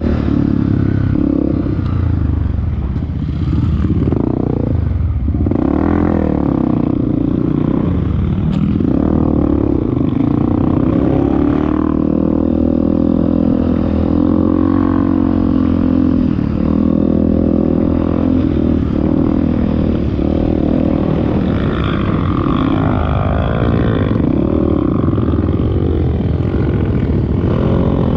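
Off-road motorcycle engine running under way, its revs rising and falling repeatedly as it is ridden.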